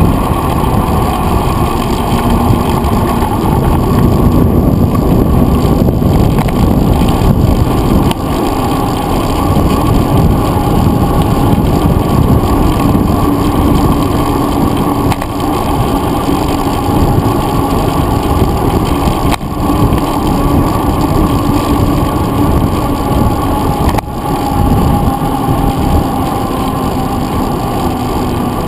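Loud, steady wind rumble and road vibration picked up by a handlebar-mounted GoPro Hero 2 on a mountain bike riding a paved trail, with a faint steady hum from the tyres on the asphalt.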